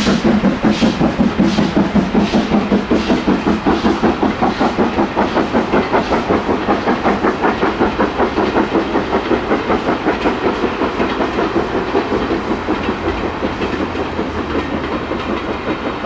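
Steam locomotive working with a steady, rapid rhythm of exhaust beats, about four a second, gradually getting a little quieter.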